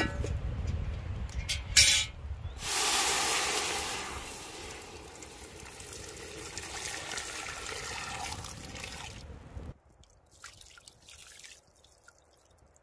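Water poured in a stream into a hot cast-iron pot, splashing steadily for about seven seconds, loudest at first and easing off before it stops abruptly. Just before the pour, the pot's metal bail handle clanks and the pot knocks down onto the stones.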